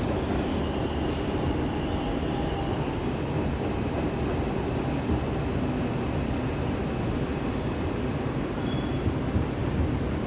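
R142 subway train rolling slowly into a station with a steady rumble, steel wheels squealing faintly on the rails as it brakes.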